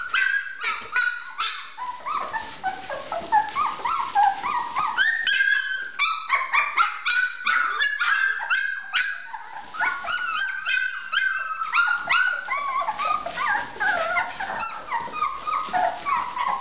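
A litter of young puppies crying and whimpering, many short high-pitched squeals and whines overlapping without a break: the crying of pups calling for their mother.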